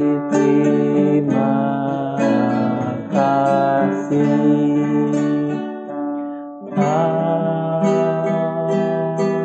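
Strummed acoustic guitar accompanying a man singing a slow prayer song in long held notes, ending on a sung "Amin". The music dips briefly about six seconds in.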